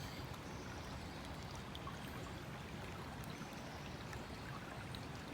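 Creek water running steadily, an even rushing wash.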